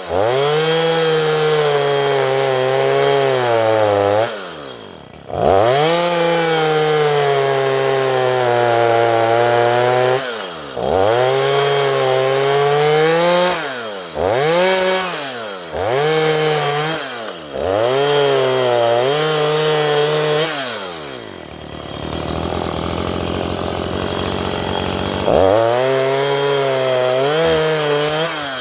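Stihl MS 162 two-stroke chainsaw cutting along a wooden fence post. It is throttled up and released in repeated bursts of two to four seconds, the pitch rising at each throttle-up and dropping at release. There is a quieter lull of a few seconds near the end before one last burst.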